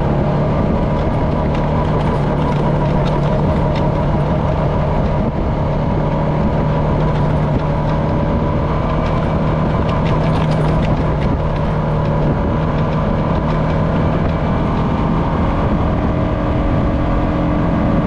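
Honda FourTrax Foreman ATV's single-cylinder four-stroke engine running at a steady cruising speed, with tyre and trail noise.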